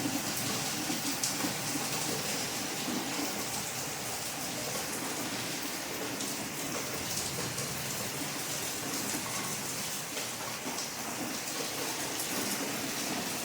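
Steady rain falling, an even, unbroken hiss of many drops on a surface.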